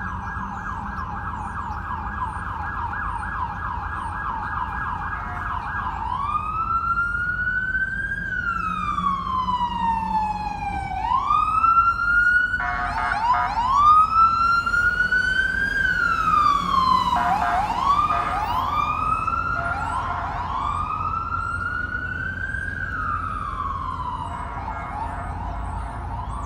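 NYPD Emergency Service Unit truck's electronic siren. It starts with a fast yelp, switches about six seconds in to a slow rising-and-falling wail broken by short bursts of quick chirps, and goes back to the fast yelp near the end. It is loudest in the middle as the truck passes, over a steady rumble of city traffic.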